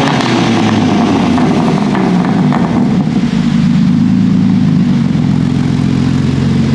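BMW G80 M3's twin-turbo 3.0-litre straight-six idling steadily through its quad exhaust, just after a rev.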